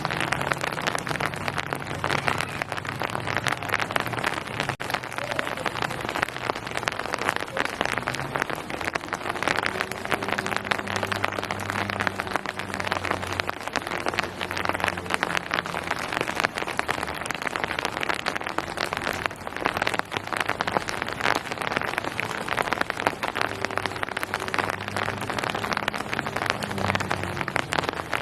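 Steady rain falling, a dense even wash with many individual drops striking close by. A faint low hum comes and goes underneath.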